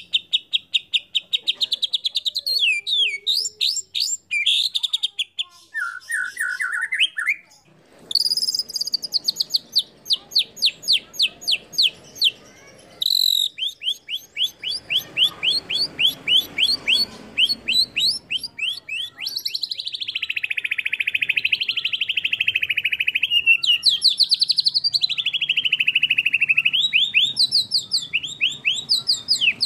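White-rumped shama (murai batu) singing at length: fast runs of quickly repeated notes, with a brief pause just before 8 s, and in the second half long swooping phrases that rise and fall.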